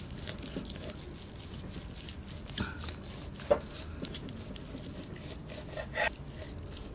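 A small knife cutting through roast lamb leg on a wooden cutting board while fingers pull the meat apart, with a few short taps and clicks, the sharpest about halfway through.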